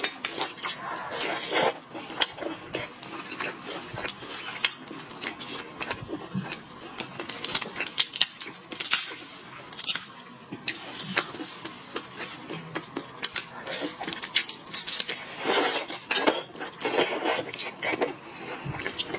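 Close-miked crackling and clicking of lobster and shrimp shells being cracked and peeled, with clinks against dishes.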